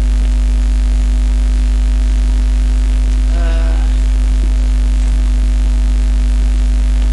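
Loud, steady electrical mains hum with its overtones, constant throughout. A brief murmur of voice comes about three and a half seconds in.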